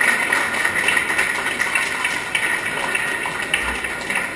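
Crowd of spectators chattering in a large echoing hall, many voices blending into a steady murmur with a patter of small clicks through it.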